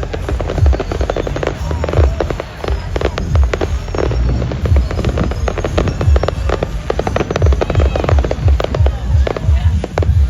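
Firework display: a rapid run of sharp bangs and crackling bursts over deep booming thumps, with music playing along.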